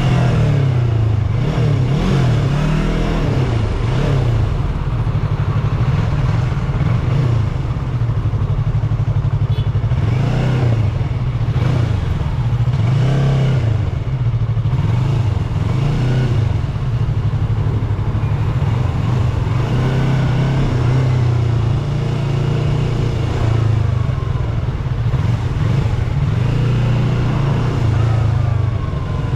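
Yamaha YZF-R3's parallel-twin engine through its stock exhaust, ridden in stop-and-go traffic. The engine pitch rises and falls again and again as it accelerates, shifts and rolls off.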